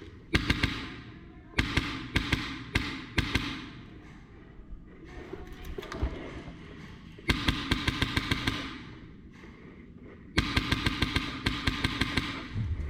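Airsoft electric guns firing bursts of rapid shots, each burst a quick string of sharp cracks over the gearbox buzz. There are four bursts: short ones near the start, then two longer bursts in the second half.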